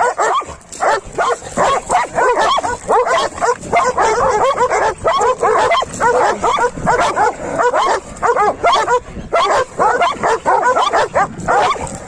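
Several dogs fighting, barking and yelping over one another in a dense, unbroken stream of short, sharp calls.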